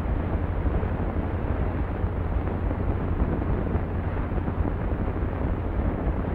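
Steady hiss with a low rumble: the surface noise of an old 1930s film print's optical soundtrack.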